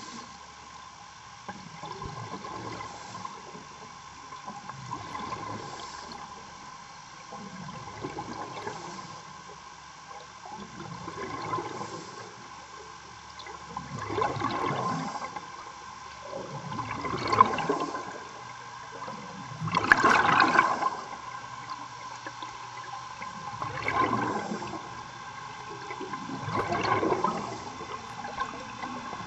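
Diver's exhaled breath bubbling out of the breathing gear underwater, a gurgling surge about every three seconds, over a faint steady hum.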